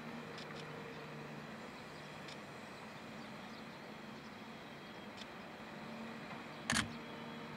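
Steady distant hum of vehicles or machinery, with one short sharp click near the end.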